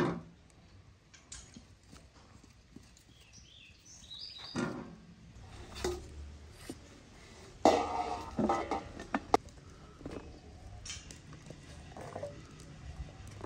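Knocks and clatter of a stainless steel bowl and a metal tray as eggplant slices are handled and dropped into the bowl, in scattered bursts with the busiest stretch about eight seconds in.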